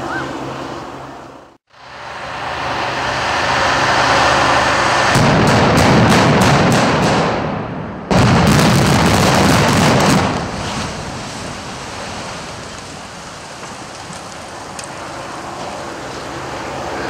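Implosion of a seven-story reinforced concrete building: rapid strings of explosive demolition charges firing, then a heavy rumble as the structure comes down, fading into a steady rumble of settling debris. The sound cuts out briefly a little under two seconds in, and the sequence starts again abruptly about eight seconds in.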